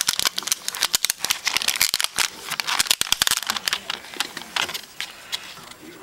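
Packaging wrap crinkling and crackling as a keyboard is unwrapped and handled, with many quick sharp crackles that thin out after about three and a half seconds.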